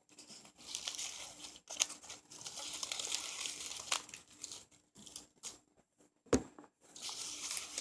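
Packaging crinkling and rustling as it is handled and unwrapped from a potted plant, in stretches with small crackles, and one sharp knock a little after six seconds in.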